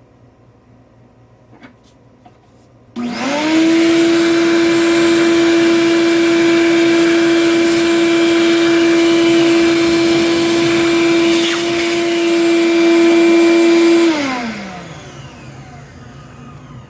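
An electric motor switches on about three seconds in, spins up quickly to a steady hum with a loud hiss, runs for about eleven seconds, then is switched off and winds down, its pitch falling.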